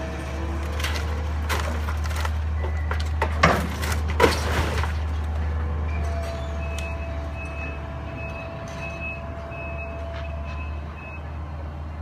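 Bulldozer's diesel engine running with a steady low drone, two sharp clanks about three and a half and four seconds in, then its reversing alarm beeping about seven times, roughly one and a half beeps a second.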